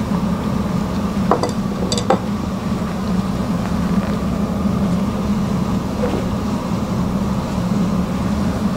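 Steady low hum of a restaurant room, like a ventilation or extractor fan, with two light clinks of tableware about one and two seconds in as the dish and chopsticks are set down.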